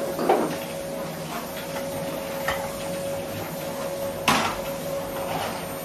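Kitchen clatter of cookware being handled on a stove: a few light knocks and one sharp knock about four seconds in, over a steady faint tone.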